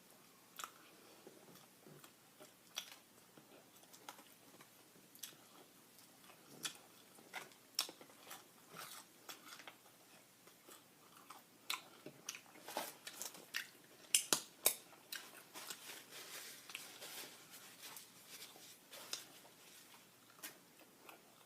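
A person chewing and biting food: irregular small clicks and crunches, busiest from about twelve to seventeen seconds in.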